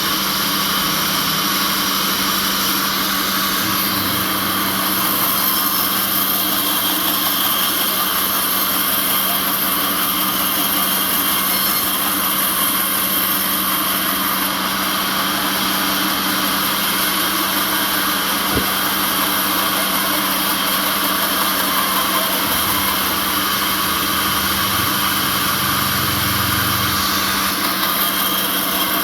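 Sawmill machinery running with a steady drone and a high-pitched whine, with no break over the whole stretch.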